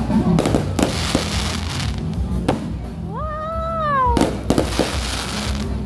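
Aerial fireworks going off overhead: a string of sharp bangs, several close together in the first second and more around four seconds in. About three seconds in there is a pitched wail about a second long that rises and then falls.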